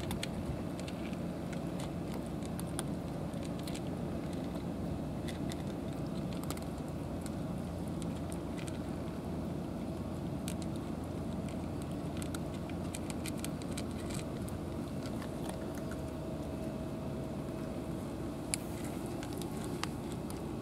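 Cats crunching dry kibble from plastic trays: a scattered run of small sharp clicks and crackles over a steady low rumble.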